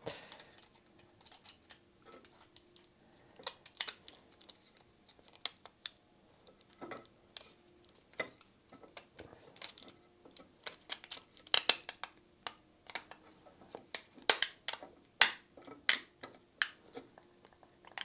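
Hard plastic cover and screen housing clicking and knocking as they are handled and pressed together by hand, in scattered sharp clicks that come thicker in the second half, over a faint steady hum.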